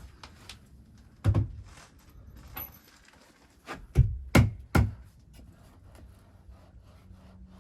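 Knocks and thuds on the wooden treehouse structure: one about a second in, then three in quick succession around four seconds in, with a few lighter clicks between.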